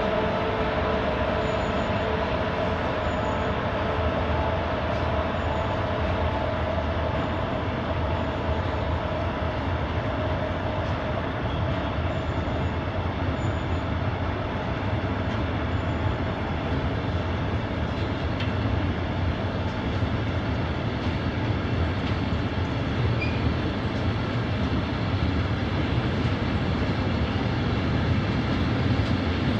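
A loaded freight train rolling steadily past close by: continuous rumble and rush of wagon wheels on the rails. A steady hum is heard at first and fades out within the first several seconds.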